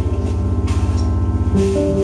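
Experimental post-jazz band playing live: a rapidly pulsing low drone under sustained pitched notes, with two brief noisy hits in the middle.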